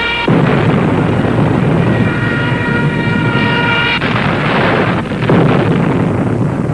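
Battle sound effects: a dense, low rumble of aircraft and explosions, surging into a louder rushing blast about four seconds in and another just after five. Faint orchestral music runs under the middle part.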